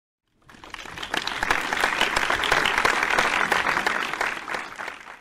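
Applause from an audience: many hands clapping. It builds up from about half a second in and cuts off abruptly at the end.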